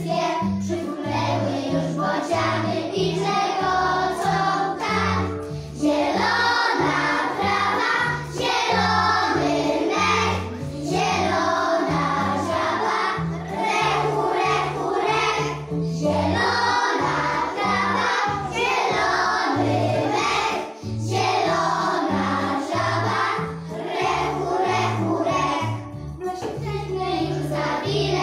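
A group of young children singing a song together in unison over recorded backing music with a stepping bass line.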